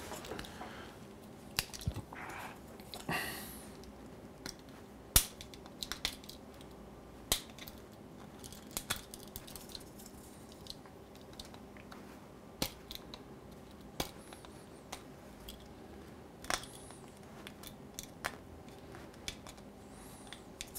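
Small sharp clicks and snaps of plastic support material being picked and broken off a 3D-printed part with a small pocket knife, coming at irregular intervals, the loudest a little over five seconds in. A faint steady hum lies underneath.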